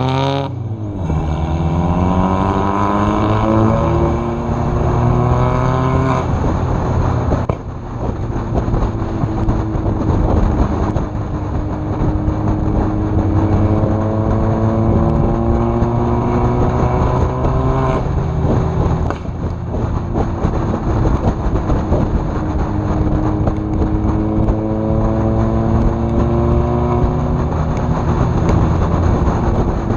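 Turbocharged 1.8T four-cylinder engine of a VW Jetta Mk4 accelerating through the gears. Its pitch climbs for several seconds, then drops at each gear change, over and over.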